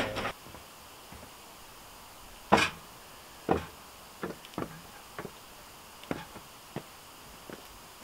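Footsteps of rubber boots on the wooden threshold, log steps and planks of a log house: about eight separate wooden knocks at an uneven pace, the loudest about two and a half seconds in.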